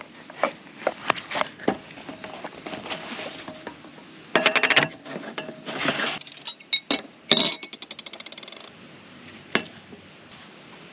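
Hands unpacking a portable espresso maker on a wooden table: fabric pouch rustling, then scattered clicks, knocks and clinks as the maker, a coffee capsule and a glass cup are set down. Two short rapid rattles come about four and a half and seven and a half seconds in.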